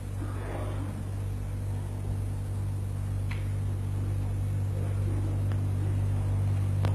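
Steady low electrical hum, with a couple of faint clicks, one about three seconds in and one near the end.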